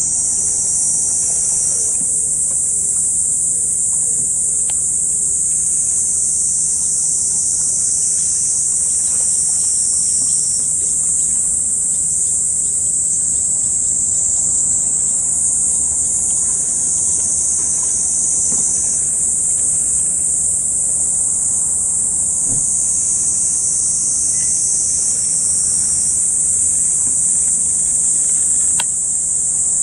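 Insects in a loud, steady, high-pitched buzzing chorus whose pitch shifts slightly every few seconds.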